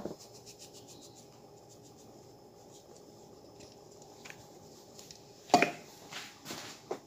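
Powdered laundry soap and baking soda going into a plastic basin, with faint scattered ticks of falling granules in the first two seconds. Then come a few short rubbing, scraping noises from about five and a half seconds in, the first one the loudest, as the plastic basin and containers are handled.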